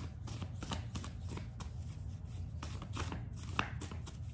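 A deck of reading cards being shuffled by hand: an irregular run of quick, soft clicks and flutters over a low steady hum.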